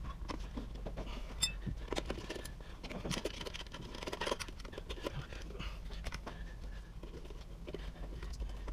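Small clicks, taps and scrapes of hands and hardware on the metal housing of a garbage disposal as parts are fitted to its bottom plate, scattered irregularly over a low steady hum.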